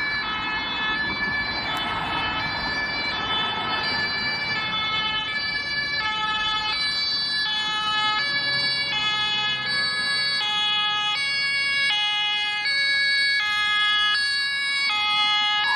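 German two-tone emergency siren (Martinshorn) on a Red Cross ambulance. It alternates steadily between a high and a low note, changing about every two-thirds of a second.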